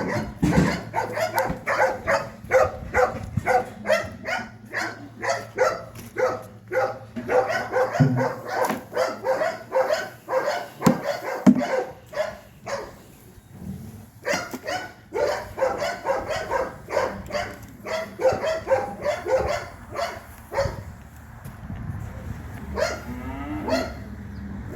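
Dairy cattle mooing while a dog barks rapidly and repeatedly, two to three calls a second, pausing briefly partway through. A steady low hum underneath stops about a third of the way in.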